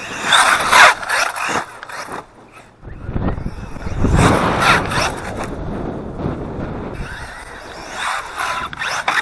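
Electric motor of a Team Redcat BE6S RC truck whining up and down in pitch as the throttle is worked, near the start and again near the end. Through the middle there is a long stretch of low rumbling noise from wind buffeting the microphone.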